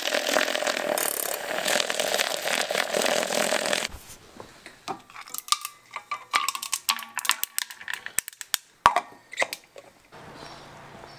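Handheld battery milk frother whirring steadily in a stainless steel tumbler of coffee for about four seconds. Then ice cubes clink one after another as they are dropped into the tumbler.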